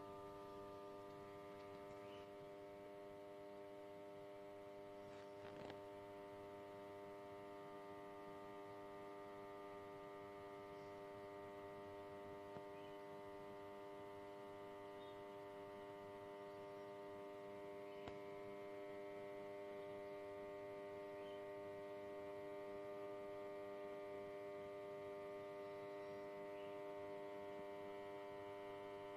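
Faint steady electrical hum made up of several held tones, unchanging throughout, with a few soft clicks.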